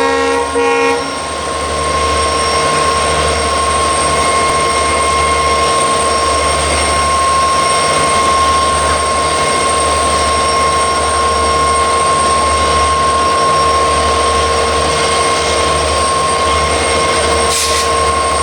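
EMD WDP-4 diesel locomotive, with a turbocharged two-stroke V16, humming under power as it pulls a passenger train away from a station, a steady high turbo whine over a low throbbing beat. A horn note cuts off about a second in, and a short hiss comes near the end.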